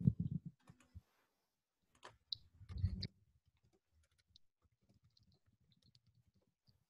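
Faint, scattered clicks from computer use, with two low, muffled thumps: one at the start and one about three seconds in.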